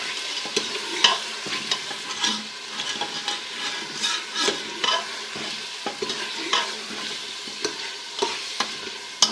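Beef and potato curry sizzling as it is fried (bhuna) in ghee, with a spoon scraping and knocking against the pot in irregular strokes as it is stirred.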